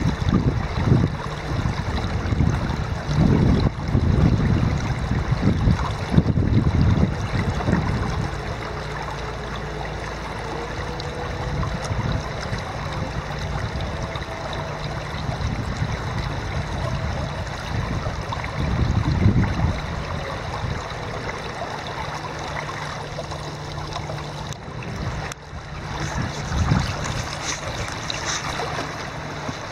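Shallow river water running steadily over a gravel and stone bed, with low, irregular rumbling bumps on the microphone during the first eight seconds and again briefly later.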